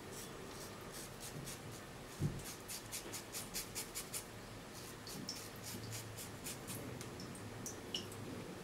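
Shavette razor blade scraping stubble off a gel-covered scalp: faint, short, quick strokes, several a second, in a run from about two seconds in, then a few scattered strokes toward the end.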